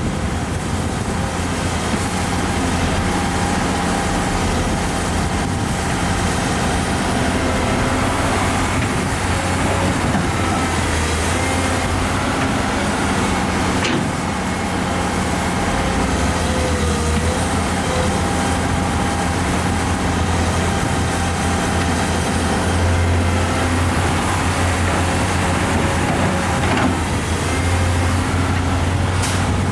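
Heavy construction machinery's diesel engine running steadily, with a couple of sharp knocks, one about halfway and one near the end.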